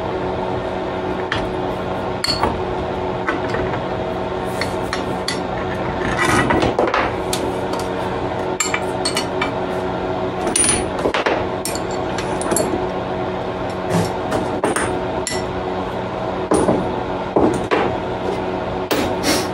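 Scattered clinks and knocks of metal as hold-down clamps and an aluminium plate are taken off a drill press table, over a steady machine hum.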